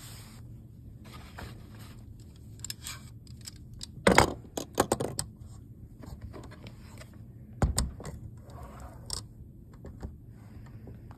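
A folding aluminium laptop stand being opened out and adjusted by hand: a series of sharp metallic clacks and clinks from its hinged legs, loudest about four seconds in and again near eight seconds, with quieter handling and scraping between.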